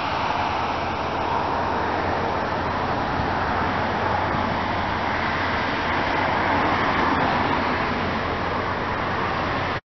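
Steady roar of distant road traffic, even and unbroken, cutting off suddenly near the end.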